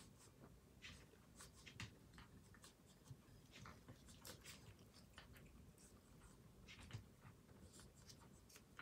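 A cat eating anchovies from a bowl: faint, irregular crunches and clicks of chewing.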